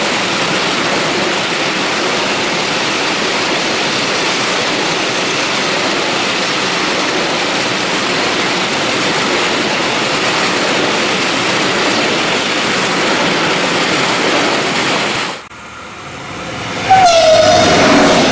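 Freight train of covered sliding-wall wagons rolling past close by, a steady rushing of wheels on rail. After an abrupt cut about fifteen seconds in, a passenger train comes through at speed sounding its horn, one loud tone that drops slightly in pitch as it passes.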